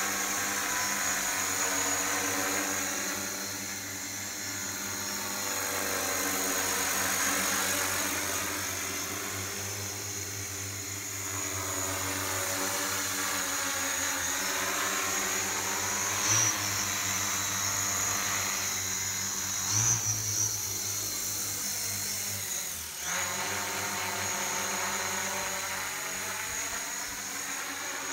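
Large agricultural spray multirotor drone flying on a test flight after repair of a failed ESC: its motors and propellers give a steady hum with a high whine on top. The sound swells and fades as the drone moves about, and it is briefly louder twice around the middle.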